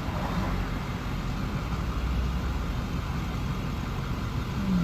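Motor vehicle engine idling, a steady low rumble with faint traffic noise.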